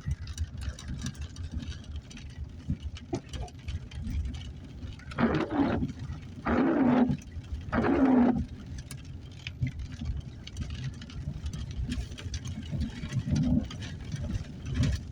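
Vehicle driving on a dirt road, heard from inside: a steady low engine and road rumble with light rattling, and three louder rushing sounds about a second apart near the middle.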